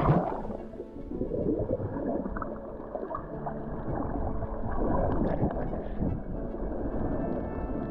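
Seawater heard through a camera held underwater. A splash comes as it plunges under, then muffled gurgling and churning of the water as the waves surge.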